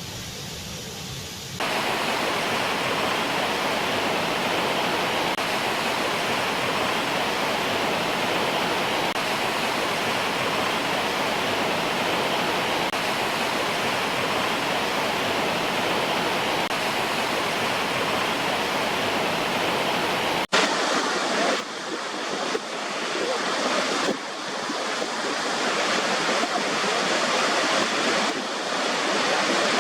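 Waterfall rushing steadily. About two seconds in and again about two-thirds of the way through the sound changes abruptly; after the second change it is thinner, with little low rumble, and swells and eases unevenly.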